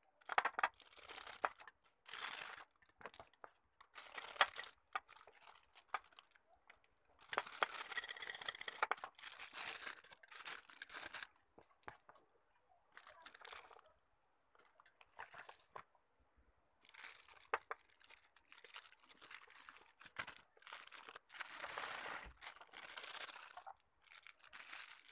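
Clear plastic piping bag crinkling and rustling in irregular bursts as whipped cream is spooned into it and the filled bag is handled, with short quiet pauses between.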